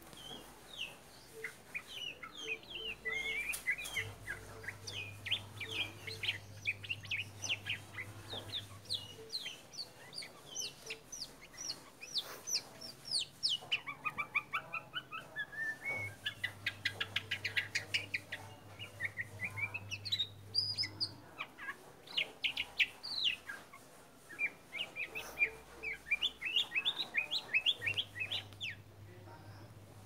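White-rumped shama singing a long, varied song of rapid whistled and chattering notes, with a quick rising run of notes about halfway through and a short pause a few seconds later.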